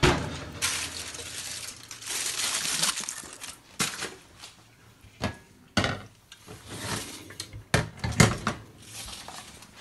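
Kitchen handling sounds around stainless steel catering trays: a stretch of noisy rustling for about the first three seconds, then a string of sharp knocks and clanks.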